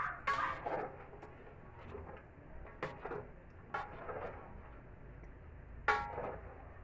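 Ladle stirring rice porridge in a large aluminium pot on the stove: soft scraping with a few sharp knocks against the pot, the loudest about six seconds in with a short ring. The rice is being stirred constantly to keep it from sticking to the bottom as it cooks.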